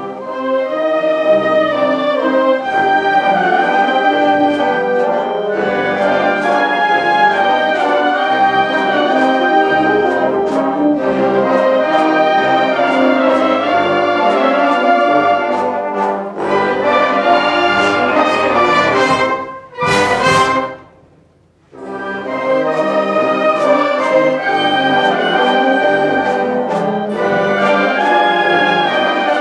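A wind band of clarinets, flutes, trumpets, trombones and sousaphones plays a piece together. The music stops briefly about two-thirds of the way through, then starts again.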